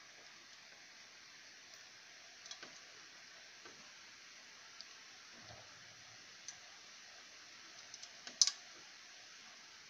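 Scattered small clicks and taps of a screwdriver working at the plastic deflection yoke and its clamp on a CRT television's picture-tube neck, with a sharp, loud double click about eight seconds in, over a steady low hiss.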